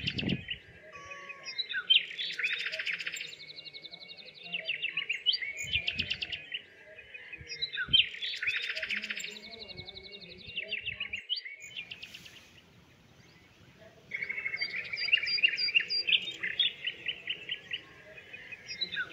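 Small birds chirping and chattering in fast, repeated bouts of a second or two each, with a pause of about two seconds roughly two-thirds of the way through. A few brief low thumps come near the start.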